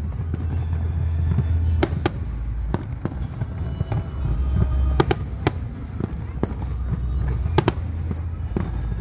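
Fireworks display: several sharp cracks and bangs of bursting shells, scattered irregularly, over a steady low rumble.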